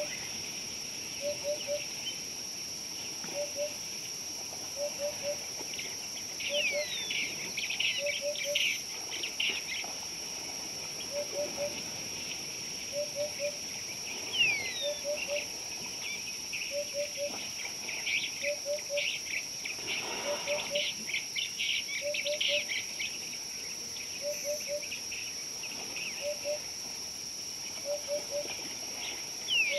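Birds chirping and twittering in bursts, with a few falling whistles and a low three-note call repeating about every second and a half, over a steady high-pitched insect drone.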